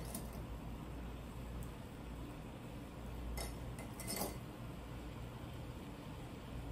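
Fabric clips being handled and clipped onto cotton fabric: a few light clicks, one at the start and two more a little after three and four seconds in, over a steady low hum.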